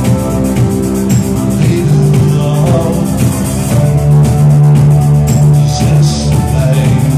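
Live rock band playing: drum kit keeping a steady beat under electric guitar and bass guitar, with long held low notes.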